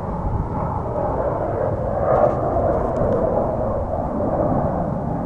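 Distant F-35B Lightning II jet engine running at takeoff power, a steady rumble with a little swell in level around two seconds in.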